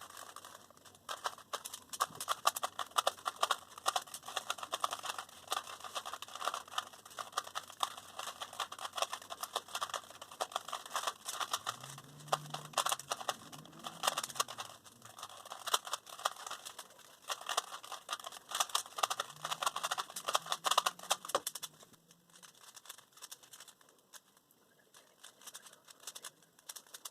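3x3 Rubik's cubes being turned fast in a speedsolve: a dense, rapid clicking and clacking of the plastic layers. The turning thins out and goes quieter about 22 seconds in.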